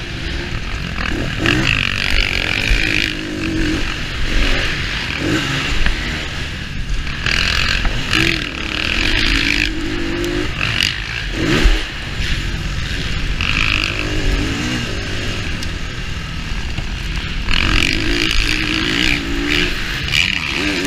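2019 KTM 350 EXC-F's single-cylinder four-stroke engine, heard from on board as the bike is ridden, the throttle opened and closed again and again so the pitch keeps rising and falling.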